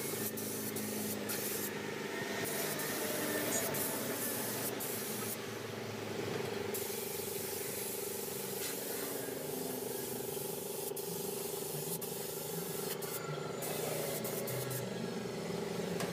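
Paint spray gun hissing as it sprays a combine harvester, breaking off briefly a few times, over a steady hum.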